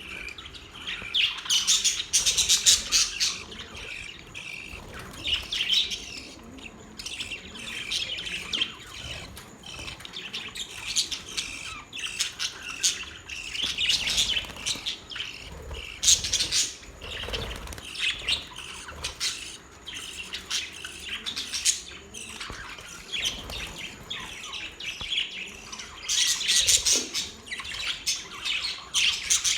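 Budgerigars chirping and warbling together in a steady chatter of high, quick chirps, with louder bouts now and then.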